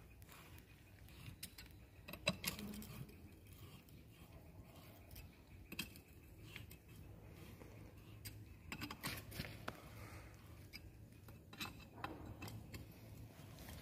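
Faint, scattered clinks and taps of small steel parts and tools being handled during the strip-down of a hydraulic directional control valve, with a few sharper clicks spaced a few seconds apart.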